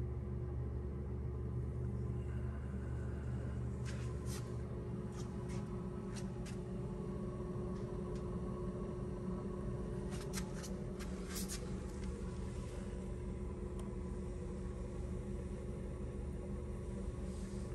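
Hydronic heating system running: a steady low hum from the gas boiler firing at about 10% of its capacity together with its circulator pump. A few faint clicks come in bunches around four to six seconds in and again around ten to eleven seconds.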